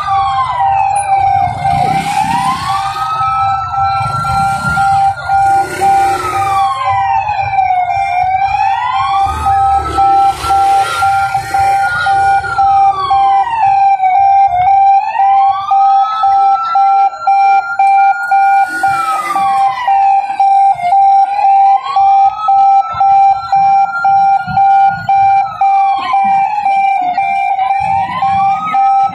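Ambulance siren wailing slowly: the pitch rises, holds high for a few seconds and falls again, about every six seconds, over a steady pulsing tone.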